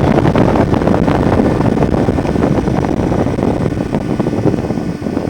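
Outdoor unit of a Trane XL20i 3-ton heat pump running in heating mode at what appears to be half capacity (about 1.5 tons): a loud, steady fan rush with a fluttering quality and a steady hum from the compressor.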